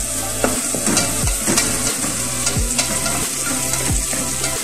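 Malunggay leaves sizzling in a stainless steel pot as a wooden spoon stirs them, with light clicks of the spoon against the pot. A deep bass beat from background music falls about every second and a half underneath.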